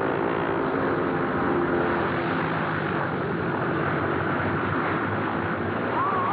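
Two Piper Cherokee light planes' piston engines and propellers running steadily at high power, pulling against restraining ropes. Near the end, a man's shout begins over the engine noise.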